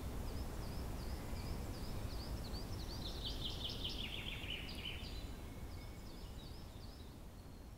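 Outdoor ambience: small birds singing in a series of short repeated chirps, with a louder trill about three seconds in, over a steady low background noise. The sound fades out near the end.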